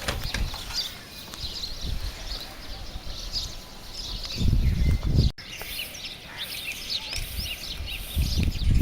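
A chorus of small birds chirping, many short high calls overlapping throughout. A low rumbling noise swells twice, about four seconds in and again near the end, and the sound drops out for an instant a little past five seconds.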